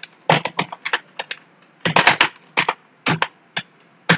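Typing on a computer keyboard: quick keystrokes in short, uneven runs with brief pauses between them.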